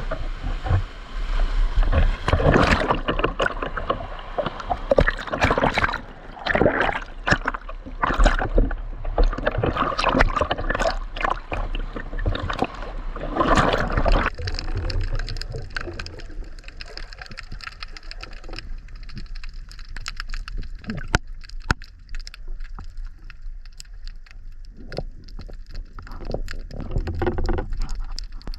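Sea water splashing and sloshing around swimmers entering the water, with wind on the microphone. About halfway through, the sound suddenly drops to a quieter, muffled sound with scattered clicks.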